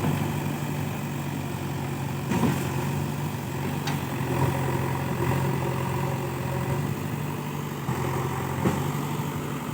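Diesel engine of a JCB 3DX backhoe loader running steadily, with a few sharp knocks from the machine along the way.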